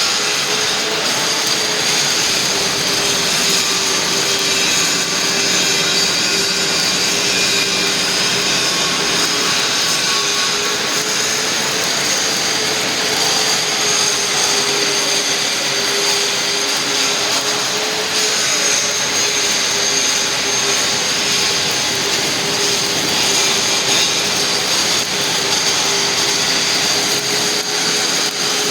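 Arc welding: a steady, unbroken hiss with a faint, slightly wavering whine beneath it.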